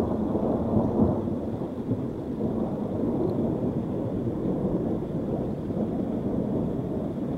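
Thunder rolling: a long, low rumble that swells about a second in and keeps rumbling steadily.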